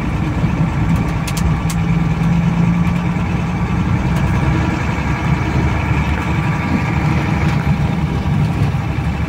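Water-tanker truck's engine running steadily under load as it climbs a rough, rocky dirt road, heard from inside the cab, with a few light knocks and rattles from the jolting ride.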